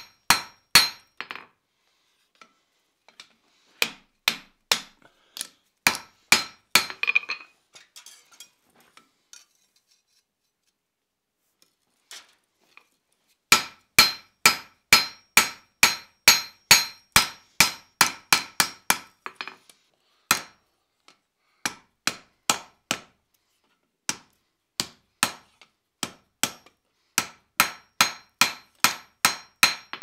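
Hand hammer striking a red-hot iron cross on an anvil, forging out its arms, each blow ringing bright and metallic. The blows come in steady runs of about three a second, with a pause of a few seconds near the middle.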